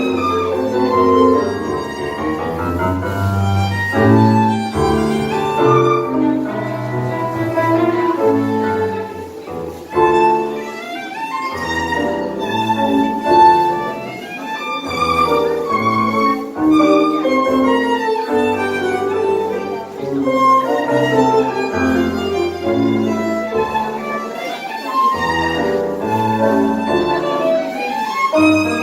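Live tango ensemble playing: a violin carries the melody over piano and low bowed strings.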